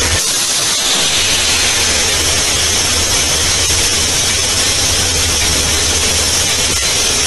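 A diesel locomotive's engine running steadily, heard as a constant low hum under a loud rushing hiss of wind and rail noise from a camera on the front of the moving locomotive.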